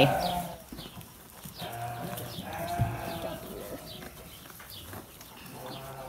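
Sheep bleating faintly a few times, with soft rustling of hay.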